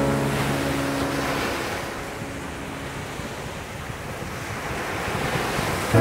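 Surf on a sandy beach: small waves break and wash up the sand in a steady hiss that swells and ebbs. Over it, a low musical note struck just before rings and fades over the first couple of seconds, and another note is struck right at the end.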